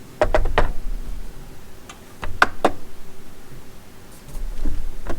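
Sharp clicks and knocks of hard objects being handled and set down, in three short clusters of two to four clicks.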